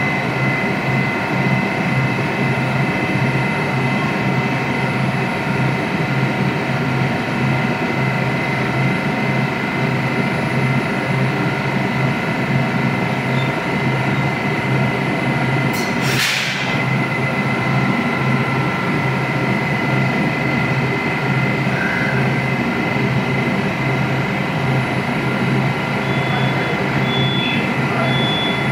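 Metro train standing at the platform with its doors open: its onboard equipment gives a steady hum with a fixed high whine. A short hiss of air cuts in about halfway through, and a few faint high beeps sound near the end.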